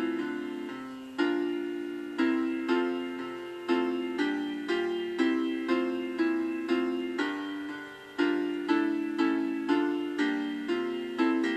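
Piano playing a hymn tune in chords. Each chord is struck and left to fade before the next, at a slow, even pace.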